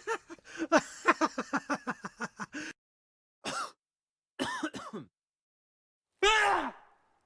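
A person's voice making non-word sounds: a quick run of short, laugh-like syllables, then a few short vocal bursts and one louder falling call near the end.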